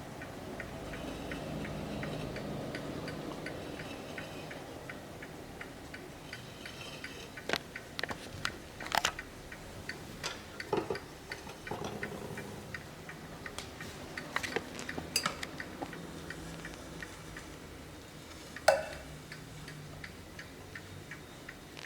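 Hermle mantel clock's mechanical movement ticking steadily. A run of louder, irregular clicks and knocks comes in the middle, and one sharp knock, the loudest sound, comes near the end.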